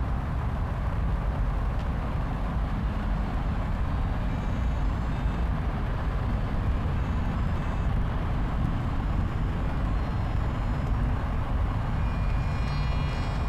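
Steady low rumble of street traffic. A faint high-pitched tone comes in near the end.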